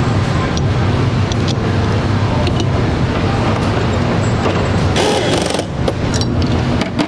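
Steady hum and clatter of factory machinery on a rifle assembly floor, with scattered sharp clicks of tools and parts and a short hiss about five seconds in.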